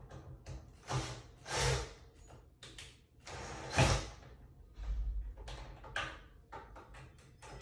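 Cordless drill driving 1¼-inch pocket-hole screws into a pine shelf divider in a few short bursts, the loudest nearly four seconds in, among scattered knocks and scrapes of the boards being handled.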